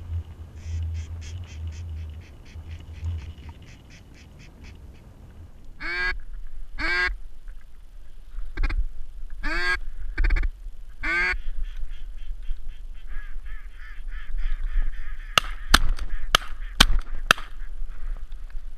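Ducks quacking: about six loud, harsh quacks spaced roughly a second apart, with softer duck chatter before and after. Near the end comes a quick run of five or six sharp clicks.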